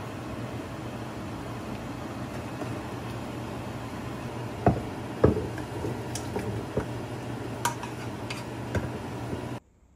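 Kitchen cookware at the stove: a steady low hum and hiss, then from about halfway a string of sharp clinks and knocks of a spoon and a pan against metal and earthenware pots as a pan of yukgaejang is stirred and tipped into a ttukbaegi. The sound cuts off suddenly near the end.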